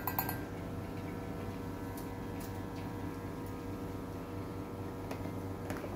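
Steady hum of café equipment, with a few faint light clicks scattered through as a metal spoon scoops cocoa powder into a glass jug.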